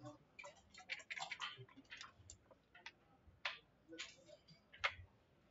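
Backgammon checkers being moved and set down on a wooden board: light, irregular clacks, with a quick run of them about a second in and the sharpest single click near the end.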